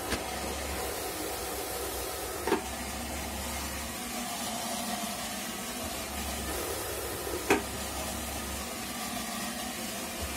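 Homemade centrifugal blower driven by an old Zhiguli car heater fan motor running, a steady rush of air. Two sharp knocks break in, about two and a half and seven and a half seconds in, the second the louder.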